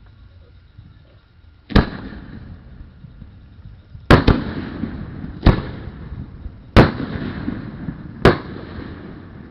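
Fireworks bursting: six sharp bangs, two of them in quick succession about four seconds in, each trailing off in a rumbling echo.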